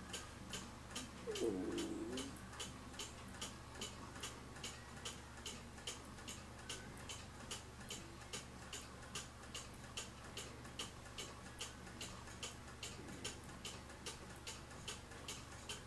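Pendulum cuckoo clock ticking steadily, about three ticks a second, with a brief faint wavering sound between one and two seconds in.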